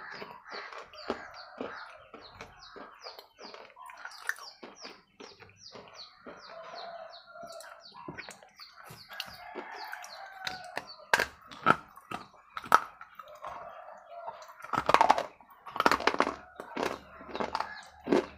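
Close-miked biting and chewing of a soaked red bar, with sharp crunching bites from about eleven seconds in that are the loudest sounds. A bird chirps rapidly and evenly in the background, several chirps a second, for most of the first part.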